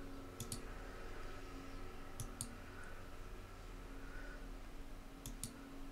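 Computer mouse clicking: three quick double clicks, spread a couple of seconds apart, over a faint steady hum.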